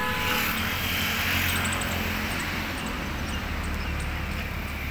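Steady low engine hum and road noise of a moving vehicle, with a hiss that is louder for the first two seconds and then eases.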